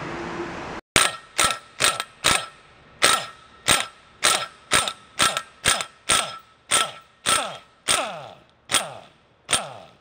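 A ratchet wrench being worked on a fastener: a steady series of sharp ratcheting strokes, about two a second, that slow slightly toward the end.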